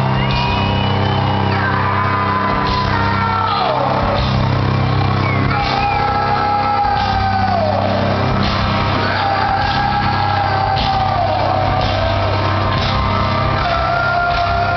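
Rock band playing loud and live, with drums, bass, distorted guitars and vocals. Phrases fall in pitch every couple of seconds over a steady beat, heard through a crowd-held phone's limited, muffled microphone.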